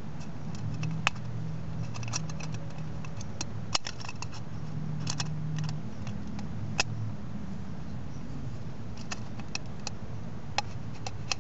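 A thin aluminium Foster's beer can being worked onto a cook-pot ring by hand, giving scattered sharp clicks and crinkles of the can's metal, a few louder ones about one, four and seven seconds in. A low steady hum runs underneath.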